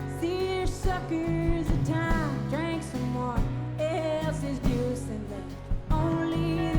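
Live band music: an instrumental stretch between sung verses, with a lead melody of bending, gliding notes over steady bass and drums.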